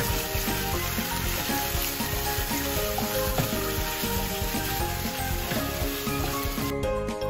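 Sliced onions and teriyaki glaze sizzling in hot oil in a nonstick frying pan, stirred and turned with a spatula as they cook down to soften. The sizzling cuts off suddenly near the end.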